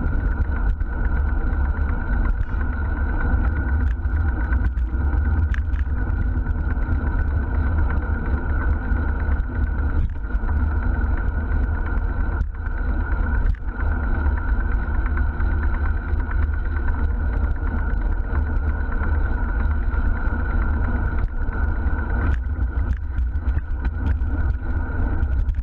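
Steady road and traffic noise from a moving bicycle, with a constant low wind rumble on the microphone.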